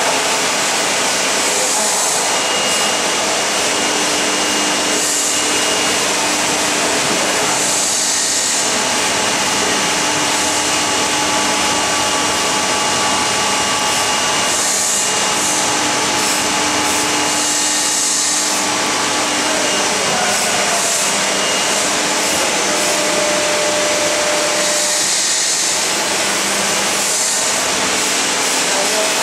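GOGOPRESS GP-series rotary heat press for sublimation transfer printing running, a steady machine whir with faint steady hums and a hiss that swells every few seconds at irregular intervals.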